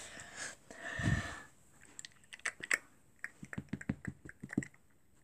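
Hands working at a toy's plastic-and-cardboard packaging: a brief rustle and a low thump, then a quick irregular run of sharp plastic clicks and taps that stops shortly before the end.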